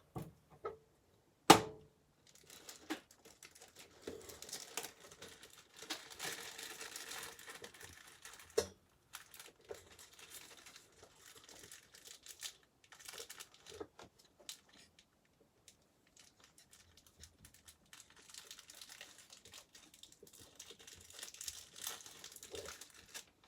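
Packaging crinkling and rustling as it is handled and opened, with one sharp click about a second and a half in and scattered light clicks and taps.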